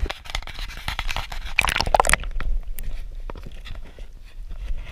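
Close crackling and crunching handling noise from a waterproof action camera being moved about and lowered into the water, loudest in the first two seconds and thinner after.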